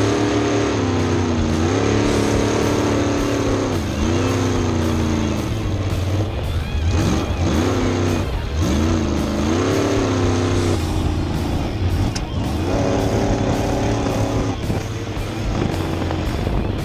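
Jet boat engine running hard, its pitch swinging up and down every couple of seconds as the throttle is worked through tight turns, over the hiss of water spray.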